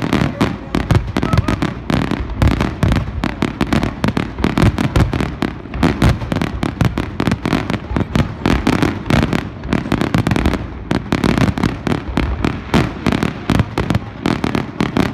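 Fireworks display in a continuous barrage, aerial shells bursting in rapid, overlapping bangs, several a second without a break.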